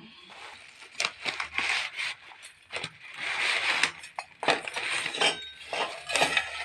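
Dry wheat vermicelli being snapped and crumbled by hand into a stainless steel bowl: irregular crackling snaps, with broken strands clinking on the steel and the plastic packet rustling.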